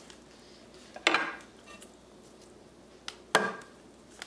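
Two sharp knocks about two seconds apart: a small coffee grinder's cup knocked against a glazed clay dish as ground sesame is tipped out of it.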